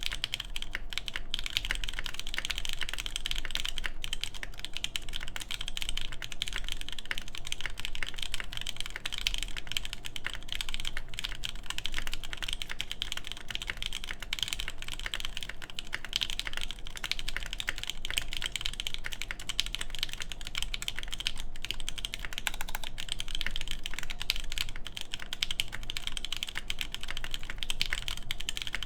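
Continuous typing on a mechanical keyboard: an AKB Petrichor with lubed Durock Lavender switches in a full FR4 plate and DCS keycaps. The keystrokes come densely and evenly, with no pauses.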